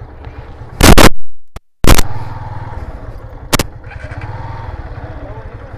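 Motorcycle engine running at low revs with a steady low putter. It is broken about a second in by two loud bursts of rushing noise with a short dropout between them, and by another short loud burst a little past halfway.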